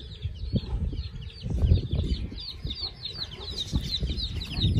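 Backyard chickens clucking, over a continuous run of quick high-pitched peeping calls that gets busier near the end.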